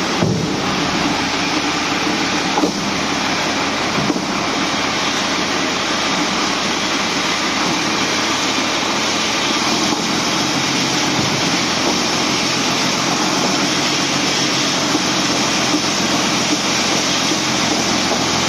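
Sinotruk dump truck's diesel engine and drivetrain running steadily as the truck creeps along in first gear, with two brief knocks a few seconds in.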